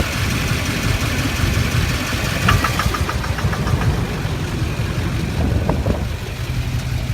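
6.6-litre Duramax V8 turbo-diesel idling steadily on seven cylinders with one injector unplugged, the heavy knock from its failed injector gone. A short run of light rapid ticks comes about two and a half seconds in.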